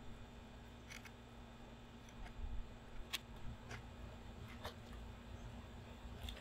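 Faint, scattered light clicks and knocks, five or so spread over several seconds, from handling the timber post brace and tools, over a low steady rumble.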